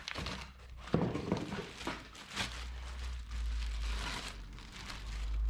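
Packaging rustling and crinkling with scratchy handling noises as a new replacement car horn is unwrapped and handled. A steady low rumble comes in about halfway through.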